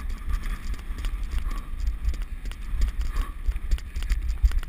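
Wind buffeting the microphone with a quick, uneven patter of footfalls and small knocks from running along a grass track.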